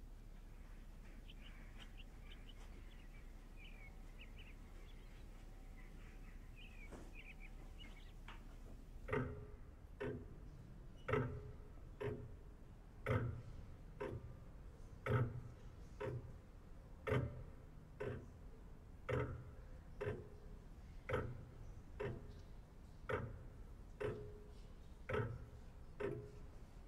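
Longcase pendulum clock ticking, a slow tick-tock about once a second, starting about nine seconds in. Before that only faint room tone with a few faint high chirps.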